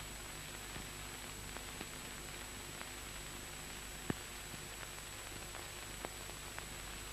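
Steady hiss with scattered faint clicks and pops, one louder about four seconds in: the background noise of an old film soundtrack.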